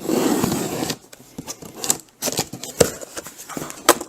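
Cardboard shipping case being opened by hand: a rough tearing scrape for about a second, then rustling of cardboard and packaging with a few sharp clicks and knocks.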